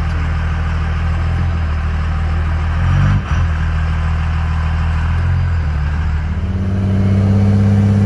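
5.9 L Cummins common-rail inline-six turbo diesel of an early third-generation Ram pickup, heard from inside the cab as the truck drives off. It runs on a single-injection tune that drops the pre-injection event meant to quiet it. The engine note breaks briefly about three seconds in, then climbs in pitch and grows louder from about six seconds as the truck accelerates.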